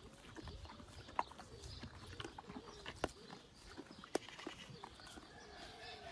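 Horse biting and chewing melon held out by hand: wet, crunchy chewing with several sharp crisp snaps.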